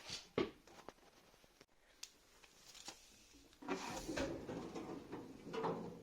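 A few light knocks, then about two seconds of scraping and rustling near the end.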